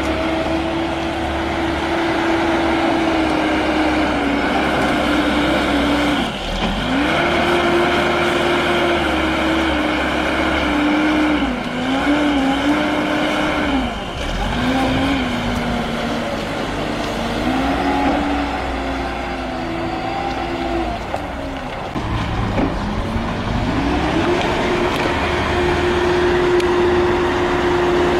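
Multirotor drone's motors and propellers whirring in a steady tone that rises and falls in pitch as the throttle changes. The pitch drops sharply and climbs back three times, about a quarter, half and four-fifths of the way through.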